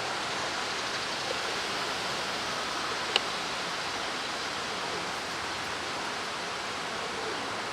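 Steady hiss of wind, even throughout, with one faint click about three seconds in.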